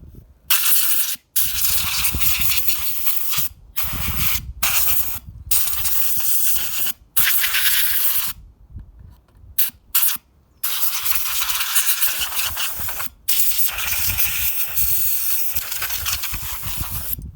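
Compressed air blown in about ten hissing blasts, from under a second to a few seconds long with short breaks between, blowing dust out of the inside of a dusty 24-inch iMac.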